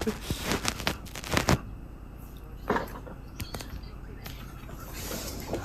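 A few light knocks and rustling handling noises, bunched in the first second and a half, with one more knock about three seconds in.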